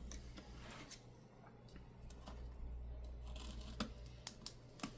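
Faint rubbing and scraping from cleaning a tablet's frame corner and glass, with several sharp light clicks in the second half.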